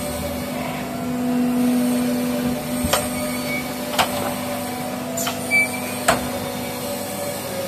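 Automatic hydraulic press forming diamond saw blade segments, running with a steady machine hum that swells louder for a moment about a second in. A few sharp mechanical clicks come in the middle, a second or so apart.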